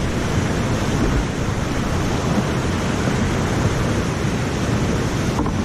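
Whitewater rapids churning close around a kayak: a loud, steady, dense rush of falling, broken water.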